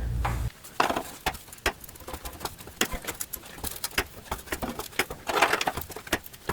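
Irregular light clicks and ticks, with a brief scraping rustle about five seconds in; a low steady hum cuts off about half a second in.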